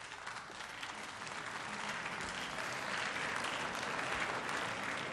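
Applause from the seated assembly in a parliamentary chamber. It starts suddenly, swells over a few seconds and begins to fade near the end.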